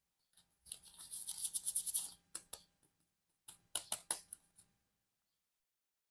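Plastic toy packaging crinkling and rustling for about a second and a half, followed by a few short sharp clicks and crackles of handled plastic.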